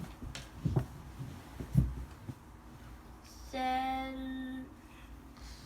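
A few soft low thumps, then a person humming one steady held note for about a second.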